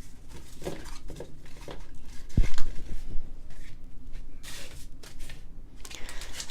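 Pokémon trading cards and pack packaging being handled: scattered rustles and light clicks, with a single thump about two and a half seconds in.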